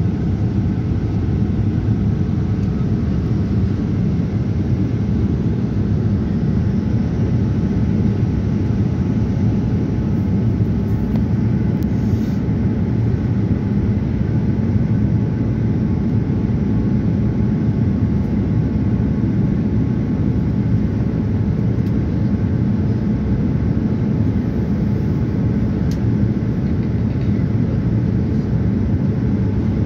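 Cabin noise inside a Boeing 787-9 airliner in flight: a steady low rumble of engines and airflow, with faint constant tones above it.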